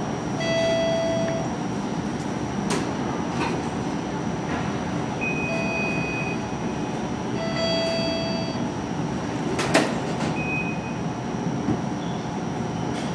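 Bombardier Flexity Outlook streetcar standing at the platform, its electrical equipment giving a steady hum. Electronic door chimes sound several times, and there is a sharp knock about ten seconds in, around when the doors close.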